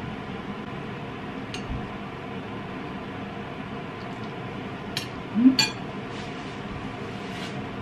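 Metal cutlery clinking against a ceramic plate a few times while eating, over a steady background hum. The loudest clinks come about two-thirds of the way in, just after a brief low rising sound.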